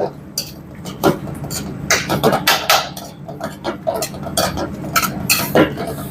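Kitchen utensils and dishes clattering, many short irregular clinks and knocks, over a steady low hum.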